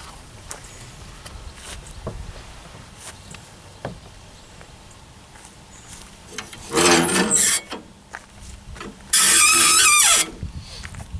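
A kayak being loaded onto a car: scattered knocks and clicks as it is handled, then two loud scraping squeals of the hull rubbing as it slides into place. The first comes about seven seconds in; the second, louder, about nine seconds in, lasts about a second and drops in pitch as it ends.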